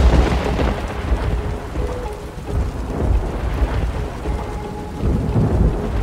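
Thunderstorm: steady heavy rain with rolling thunder, loudest at the start and swelling again near the end.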